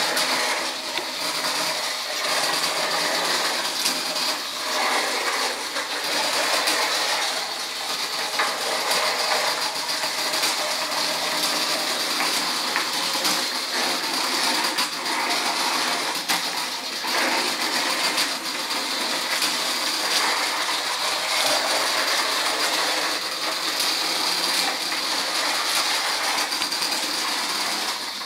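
Small homemade wheeled robot driving about: its geared drive motors whirring steadily, with scattered small clicks and rattles.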